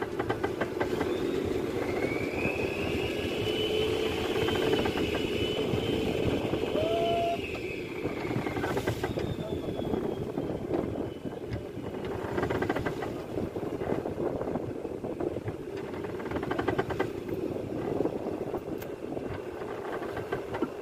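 Fishing boat's engine running steadily under wind and sea noise, with a long, high wavering tone from about two to eight seconds in.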